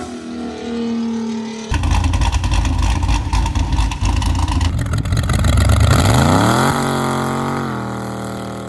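Loud motor-vehicle engine that jumps suddenly much louder about two seconds in, then revs up with a rising pitch near the end and holds there.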